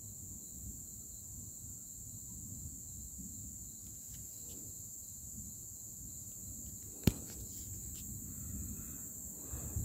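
Crickets trilling steadily and high-pitched over a low rumble of distant thunder, with one sharp click about seven seconds in.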